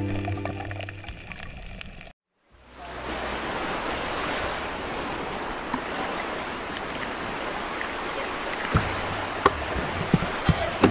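Background music fades over the first two seconds and cuts to a brief silence. Then steady rushing and washing of shallow sea water around a camera held at the surface, with small splashes and clicks in the last couple of seconds.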